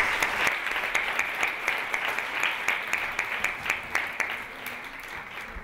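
Audience applauding: many hands clapping in a dense, steady patter that fades a little toward the end.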